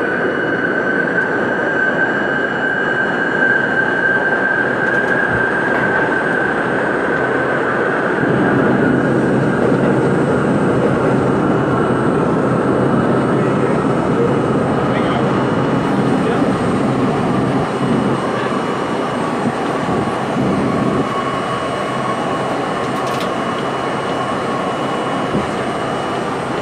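R32 subway car running through a tunnel: a high howl that slowly falls in pitch as the train slows, over steady wheel-on-rail rumble.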